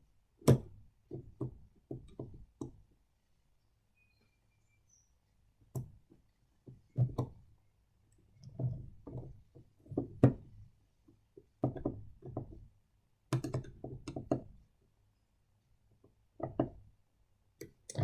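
Irregular small knocks, clicks and taps of a screwdriver and small metal parts as a motor is screwed back into a model train's chassis, with a quiet pause a few seconds in.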